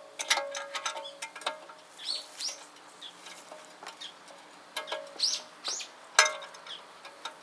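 Steel parts knocking and clanking irregularly, each strike ringing briefly, typical of work on an excavator bucket's pins and bushings.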